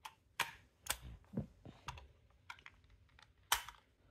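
AA batteries being pushed and snapped into a plastic toy's battery compartment: a run of irregular plastic clicks and taps, the loudest about three and a half seconds in.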